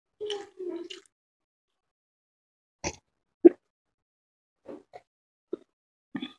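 Close-up eating and drinking mouth sounds from a man drinking from a mug: short, separate gulps and wet mouth noises, the loudest a single gulp about three and a half seconds in.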